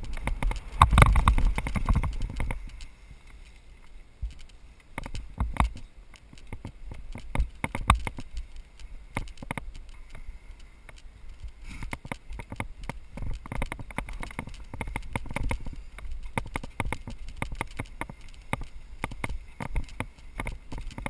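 Mountain bike riding down a bumpy grass trail: irregular clicks, knocks and rattles from the bike over the rough ground, with a louder low rumble about a second in.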